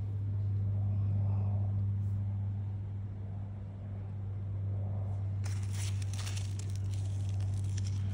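A steady low mechanical hum at one fixed pitch that doesn't change. From about five and a half seconds in there is crackly rustling of leaves or of the phone being handled.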